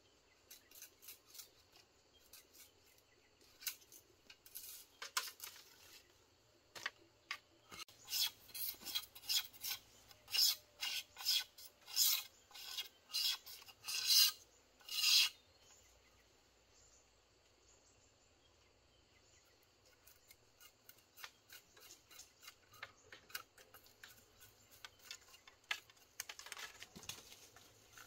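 Hand sharpening of a long-handled machete-style blade: rhythmic rasping strokes along the steel edge, about two a second, loudest in the middle stretch. The strokes go lighter and quicker near the end.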